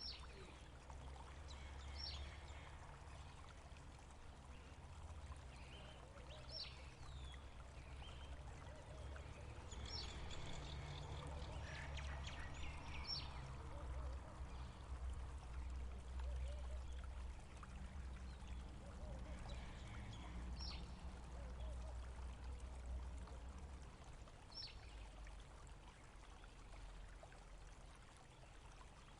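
Water flowing steadily, with short, high bird chirps every few seconds.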